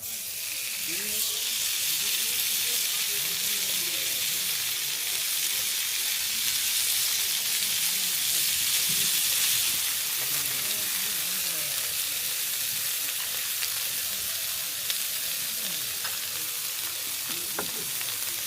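Food sizzling steadily in a hot pan, with faint voices in the background.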